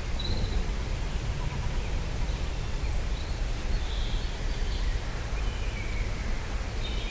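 Soft wind blowing steadily, with a few faint bird chirps scattered through it.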